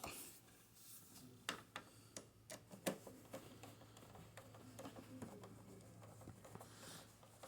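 Faint scattered clicks and taps of screws and a screwdriver being handled against the computer's plastic back cover, over a low steady hum.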